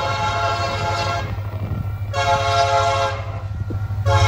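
Diesel freight locomotive's multi-note air horn sounding the grade-crossing signal. A long blast ends about a second in, a short blast follows, then the final long blast begins near the end, over a steady low rumble.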